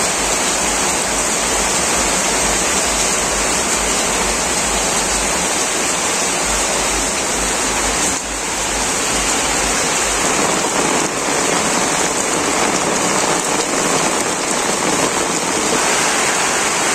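Heavy monsoon rain falling steadily on leaves, grass and vegetation, a dense even hiss.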